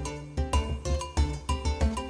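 Background music with a steady beat and a melody of short, regularly struck notes.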